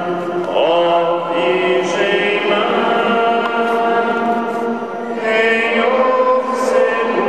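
Choir chanting sacred music: long held notes in several voices that shift to new pitches about half a second in and again around five seconds, with soft 's' sounds of the words now and then.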